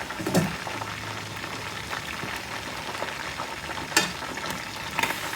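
Chicken legs frying in hot oil at about 180 degrees: a steady sizzle with a few sharp pops, the loudest about four seconds in.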